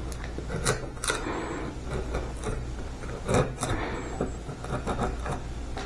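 Small wood chisel scraping and prying bark off the live edge of a walnut slab: irregular scrapes with several sharp ticks as bits of bark break away.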